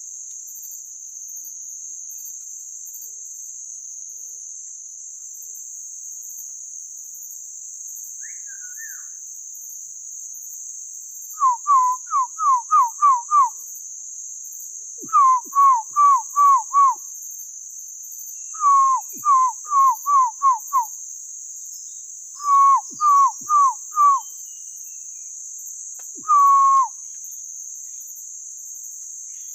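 A person whistling a bird-like call to lure birds: runs of four to six short falling whistles in quick succession, repeated five times with pauses, over a steady high drone of forest insects.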